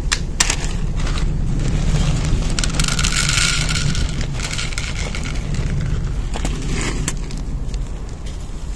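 Wind buffeting the microphone, with a plastic zip bag rustling and dry cat kibble pouring into a plastic dish about three seconds in.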